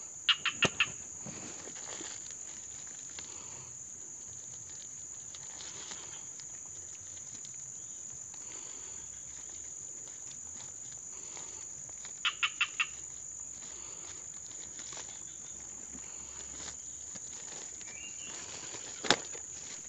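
Insects droning steadily in a high, even tone. Twice a quick run of about four sharp, pitched chirps cuts through, about twelve seconds apart, and there is a single sharp click near the end.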